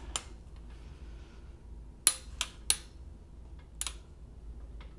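Sharp metallic clicks of a long-handled socket wrench working the cylinder head bolts through their final 90-degree angle turn after torquing to 30 foot-pounds. Three clicks come close together about two seconds in, with single ones before and after.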